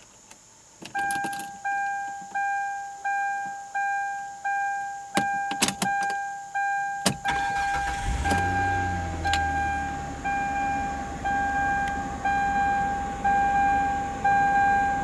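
A dashboard warning chime dings steadily, about one and a half times a second, starting about a second in. A few clicks, then the 2008 Hyundai Santa Fe's engine cranks and starts about seven seconds in, revs up briefly and settles into an idle under the chime.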